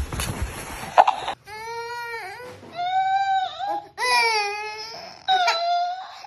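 A short burst of noise with a sharp knock, then a baby crying in a run of long wails, each under a second with short breaks between. The talking cactus toy, which records and repeats what it hears, echoes the crying back.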